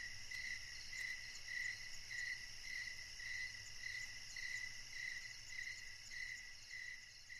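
A faint chorus of crickets chirping on a summer night: a steady high trill, with a louder chirp pulsing about twice a second.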